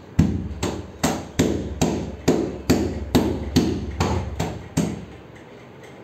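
Toddler's hand slapping the side of a refrigerator's metal cabinet: about a dozen sharp bangs with a short ring, about two a second, stopping about five seconds in.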